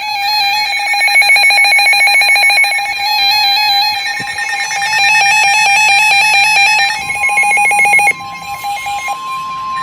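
Several NOAA weather radios sounding their alert alarms at once for a flash flood warning: layered steady electronic tones with a fast, even pulsing. About seven seconds in, a single steady warning tone near 1 kHz starts, and a second later most of the other alarm tones cut off, leaving it alone.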